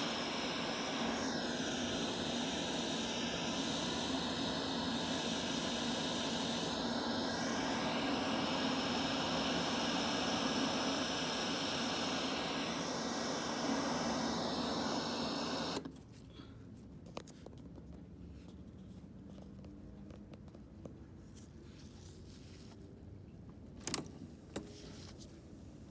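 Untuned static hiss from a Citizen JCTR141K boombox's speaker, steady with faint drifting whistles, cutting off suddenly about 16 seconds in. Near the end a single sharp click of a cassette deck key being pressed.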